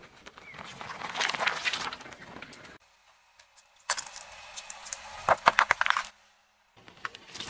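A car tyre rolling over and crushing things: a run of crunching and crackling as button mushrooms are squashed. After an abrupt break comes a second run ending in loud sharp cracks as an aluminium Coca-Cola can is flattened together with green jelly.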